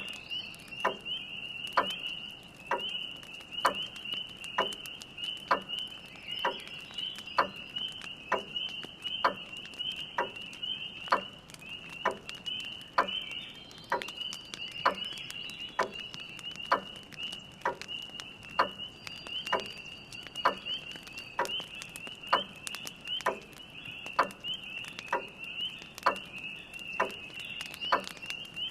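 A chorus of spring peepers making a steady high-pitched peeping, with a grandfather clock ticking about once a second and a log fire crackling lightly.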